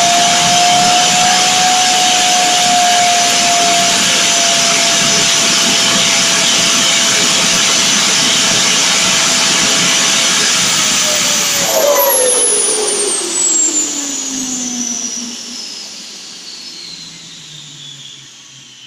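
Model gas-turbine jet engine with a four-stage axial compressor and single-stage turbine running steadily, with a loud rushing hiss and a steady whine. About twelve seconds in it is throttled off and spools down: its whines fall steadily in pitch and the sound fades.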